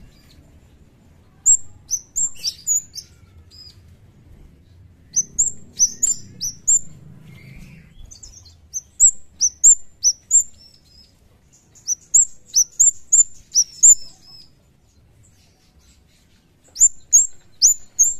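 Caged kemade (cigen) bird singing in short runs of sharp, high-pitched chirps that slur downward, five to eight to a run, with a pause of a second or two between runs.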